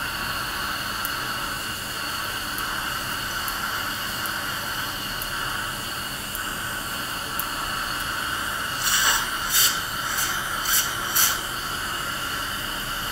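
Dental surgical suction hissing steadily as it draws air and fluid from the extraction site. About nine to eleven seconds in, four or five short, harsh bursts cut in.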